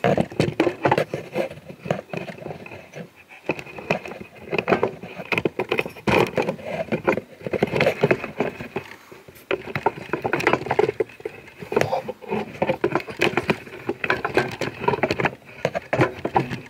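Handling noise from a camera being moved and set in place: irregular knocks, clicks and rubbing with no steady rhythm.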